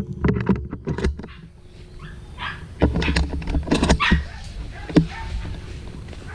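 Hunting dogs barking and yelping in short, irregular bursts, mixed with sharp knocks and rustling as they work a wild boar.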